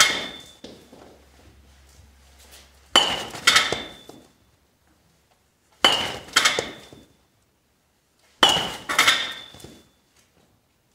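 Baseball bat hitting balls off a batting tee, three swings about two and a half to three seconds apart. Each is a sharp ringing crack followed about half a second later by a second ringing clank; one more hit sounds right at the start.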